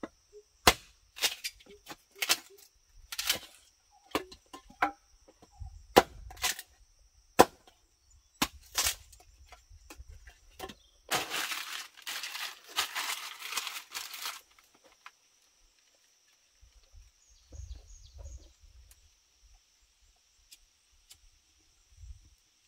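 Sharp chopping strikes of a blade on wood, about a dozen at irregular intervals roughly a second apart, over the first ten seconds. Then about three seconds of dry palm fronds rustling and crackling as they are handled, followed by a few faint soft knocks and rustles over a faint steady high tone.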